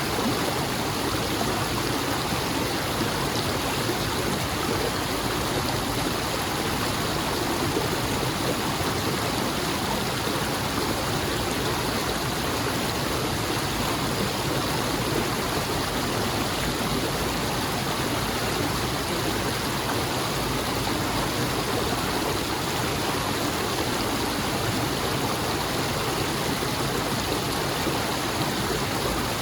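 A stream flowing steadily: an even, unbroken rush of water.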